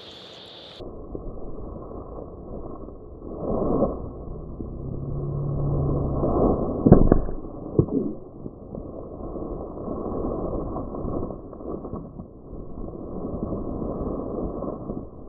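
A dart gun fires once at a sick cow: a single sharp crack about seven seconds in, over a muffled rushing noise that swells and fades.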